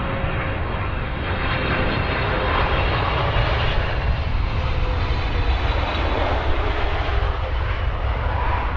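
Boeing 777 airliner's twin jet engines running on landing approach and touchdown: a steady, loud deep rumble with a rushing hiss over it.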